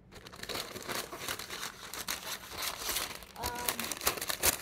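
Parchment paper crinkling and rustling as it is cut with scissors and handled, a dense run of quick crackles throughout.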